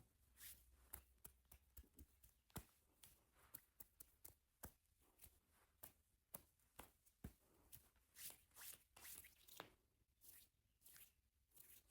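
Faint, irregular handling noise: quick clicks and taps, a few every second, mixed with short rubbing swishes, with a run of longer swishes about eight seconds in.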